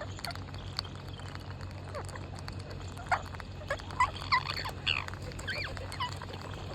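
Parrots giving short chirping and squawking calls, a quick run of them about halfway through, over a steady low hum.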